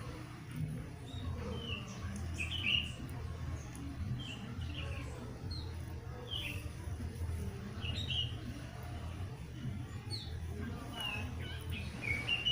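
Small birds chirping: short high chirps, several every second, some sliding downward, over a low steady hum.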